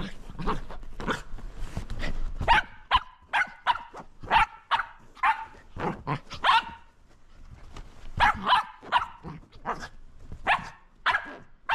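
Shetland sheepdog play-barking loudly at a lint roller: a long run of quick barks, about two a second, with a short pause about two-thirds of the way through.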